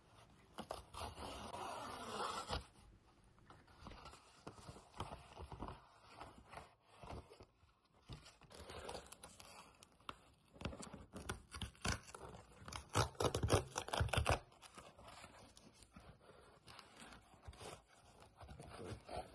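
Paper and cardboard unboxing noises. A FedEx shipping envelope is torn open with a sustained tear about half a second in. Then come intermittent scraping, rustling and clicks as fingers pick at and handle a grey cardboard card box, loudest in a cluster a few seconds past the middle.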